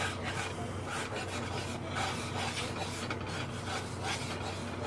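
A spatula scraping and stirring dry flour around a hot cast-iron skillet in repeated, irregular rasping strokes, the flour toasting and starting to brown for a roux. A steady low hum runs underneath.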